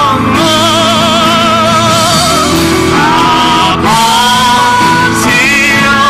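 Live worship song sung in Korean: voices holding long notes with vibrato, with short breaks between phrases, over a steady acoustic guitar accompaniment.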